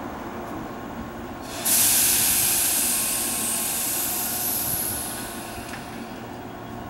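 Tobu 8000 series electric train letting out compressed air from its brakes: a sudden loud hiss about a second and a half in that fades away over a few seconds. Under it is the steady low hum of the standing train.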